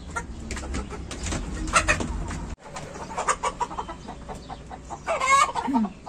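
Several domestic hens clucking in short repeated notes, with one louder, drawn-out squawk about five seconds in. A low rumble under the first half stops abruptly.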